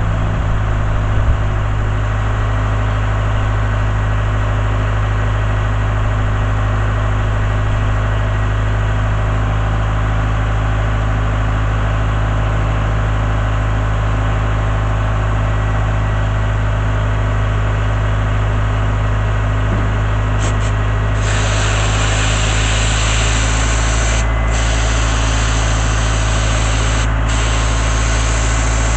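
Engine-driven air compressor running steadily with a deep drone. About two-thirds of the way in, a sandblaster nozzle opens with a loud hiss of blasting air and grit. The hiss cuts off briefly twice.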